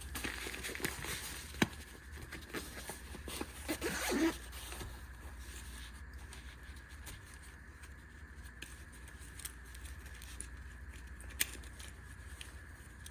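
Zipper of a packed EDC pouch being drawn, with rustling and handling clicks, over the first four seconds or so; after that only a low steady hum, with a single click about eleven seconds in.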